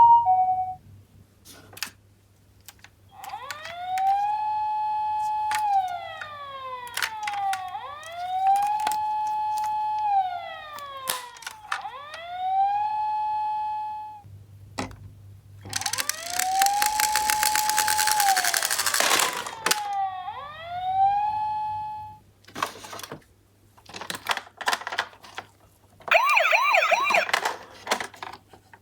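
Electronic sirens of toy ambulance minicars: a wail that rises, holds and falls about five times. Scattered clicks and plastic clatter come between the cycles. A loud rattle comes along with the siren in the middle, and a fast warbling yelp comes near the end.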